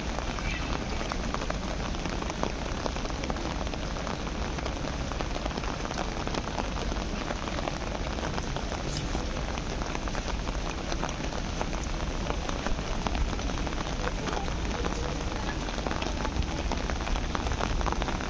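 Steady rain falling, a dense patter of drops throughout.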